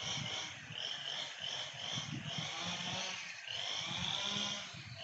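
A chainsaw running, its high engine whine dipping and rising in pitch as it is revved, over a low, uneven rumble.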